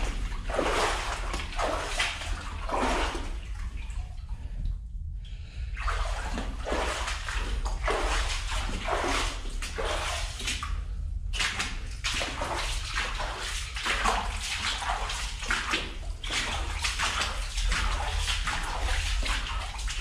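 Footsteps wading through shallow water, a splash and slosh with each step at about one step a second, pausing briefly twice.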